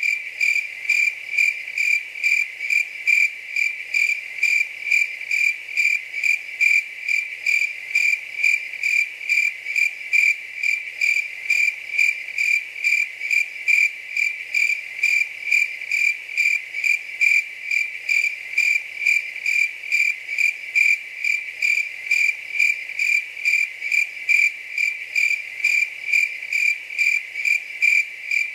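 A cricket chirping steadily: a single high-pitched chirp repeated evenly about twice a second.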